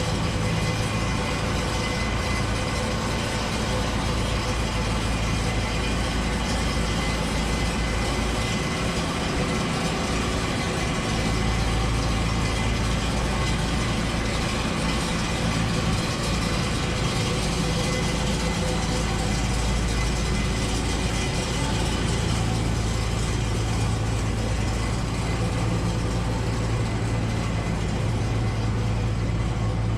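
John Deere 955 combine harvester's diesel engine idling steadily after being started.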